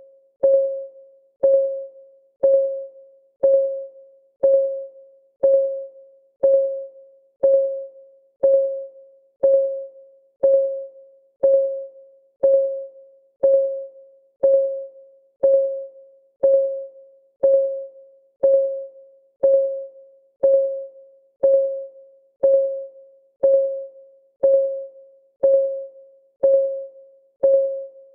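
Countdown timer's clock-ticking sound: one tick a second, steady and even, each tick a short pitched tone that dies away quickly.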